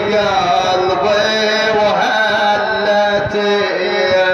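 A man chanting a mournful Arabic lament (nai) in long, drawn-out melodic phrases.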